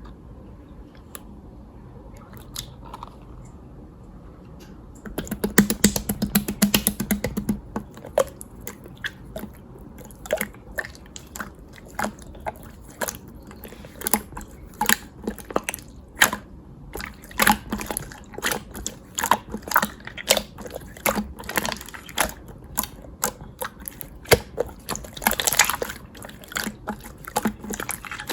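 Slime being squished and kneaded by hand, making irregular sticky clicks and pops, a few a second, which begin about five seconds in.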